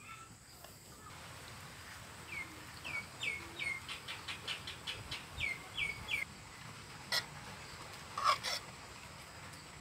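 A bird calling outdoors: a run of about ten short falling chirps over a few seconds, followed by a couple of sharp clicks near the end.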